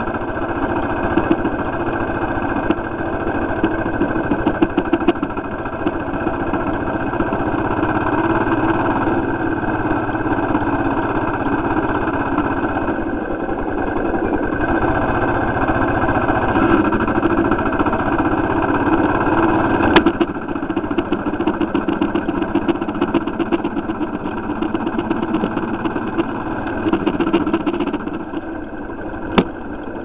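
Motorcycle engine running steadily while the bike rides along, heard from on the bike, with a sharp click about two-thirds of the way through and another near the end.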